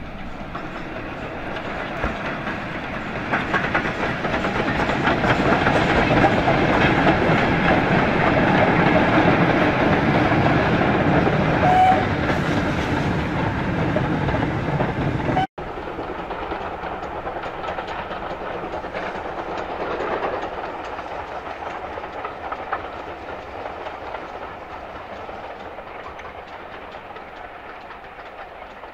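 Steam locomotive hauling a goods train past close by, building to a peak and then easing off. After a sudden cut about halfway through, a steam-hauled passenger train runs further off, quieter and slowly fading.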